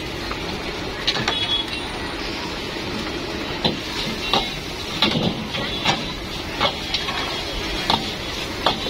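Metal ladle clanking and scraping against a steel wok as egg fried rice is stir-fried, about a dozen irregular strikes over a steady background hiss.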